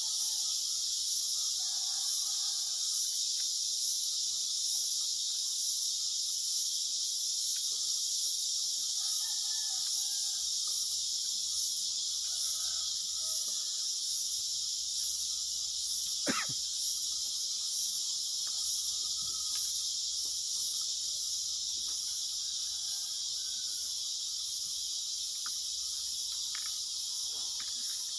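Steady, high-pitched chorus of insects, with a single sharp click about sixteen seconds in.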